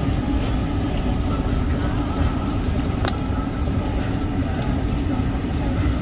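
Steady low rumble of a vehicle driving on a snow- and slush-covered road, engine and tyre noise heard from inside the cabin, with faint scattered ticks and one sharper click about halfway through.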